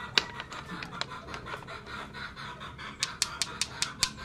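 Small hand-held stones clicking against each other: a couple of single clicks, then a quick run of about seven clicks about three seconds in.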